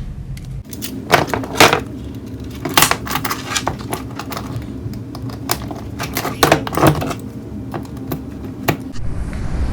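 Hand tools being handled and set down, giving a run of irregular sharp metallic clicks and clinks, several of them loud.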